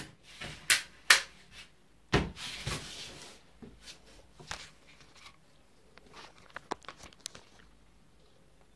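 Handling noise close to the microphone: sharp clicks and knocks as the phone and its makeshift tripod mount are adjusted. A louder rustle follows about two seconds in, then a few lighter taps.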